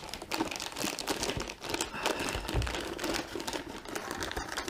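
Clear plastic bag crinkling and rustling continuously as it is pulled off a boxed electronic device.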